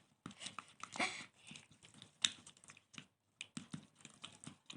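Spoon stirring a sticky gel-and-glue slime mixture in a bowl: faint, irregular clicks and wet smacks, with louder ones about a second in and just past two seconds.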